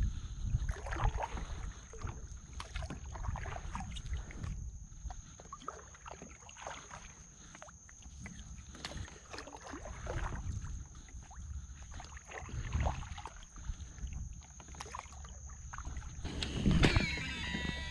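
Kayak paddle strokes dipping and splashing in the water, with light knocks on the hull and wind rumbling on the microphone. Near the end a fishing reel's spool whirs with a brief whine as a topwater lure is cast.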